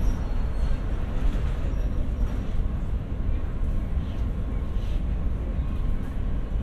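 Shanghai Metro Line 2 train standing at an underground platform with its doors open: a steady low hum from the stopped train and the station, with faint chatter from passengers.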